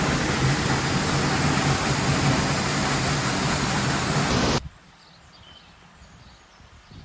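Steady, loud rushing of a waterfall that cuts off abruptly about four and a half seconds in, leaving a quiet background with a few faint bird chirps.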